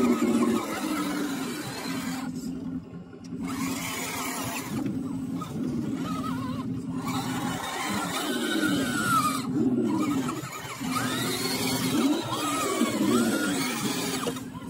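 Electric motors and gear drives of 1/10-scale RC crawler trucks whining as they climb, the pitch rising and falling with the throttle and dropping out briefly a few times.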